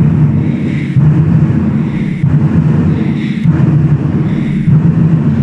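A 24 Festive Drums ensemble of large Chinese barrel drums beaten together with sticks. The playing is loud, dense drumming that surges about once a second.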